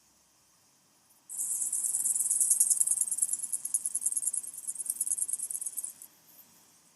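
A rapid, high-pitched buzzing trill of fine, fast pulses that starts abruptly about a second in and stops about a second before the end.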